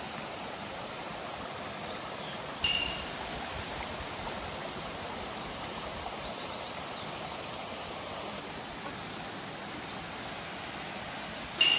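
Steady rushing of running water, with two short bright pings that ring briefly, one a few seconds in and another at the very end.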